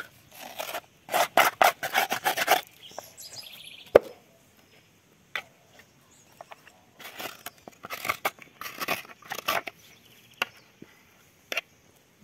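Metal spoon scraping the inside of a halved calabash (totuma) shell, scooping out the soft white pulp in rough, repeated strokes that come in bursts. A single sharp knock about four seconds in.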